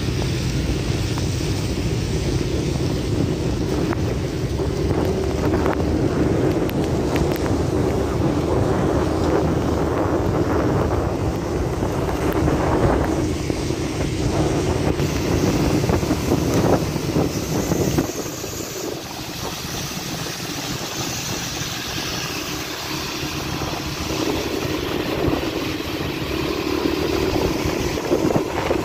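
Motorcycle riding at speed, its engine running under heavy wind rush on the microphone. The low rumble eases about two-thirds of the way through.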